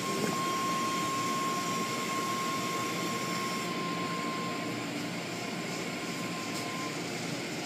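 Steady rushing machine noise with a thin, steady whine that fades out near the end.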